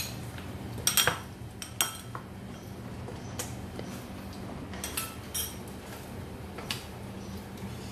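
Wooden spatula stirring in a wok, scraping and knocking against the pan, with a few sharp clinks of a metal spoon on a small bowl, the loudest about a second in. A faint steady low hum runs underneath.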